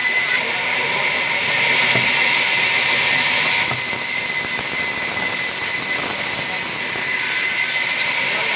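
Large vertical band saw running and sawing lengthwise through a log: a steady high whine over a continuous hiss of cutting.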